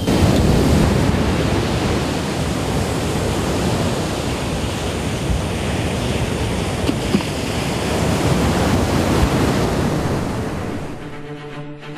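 Surf breaking and washing on a sandy beach, a steady rushing noise. Background music comes in near the end.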